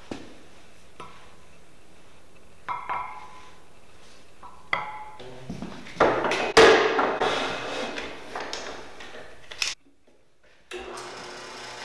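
Sharp metal clinks and short ringing taps, then a loud clatter of steel as round bar stock is set into the vise of a horizontal metal-cutting band saw. After a brief gap the band saw runs with a steady hum.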